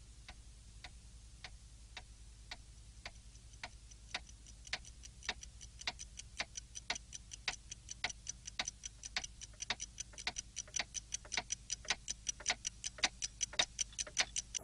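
Ticking clock sound effect: even ticks, about two a second at first, growing steadily louder and a little faster.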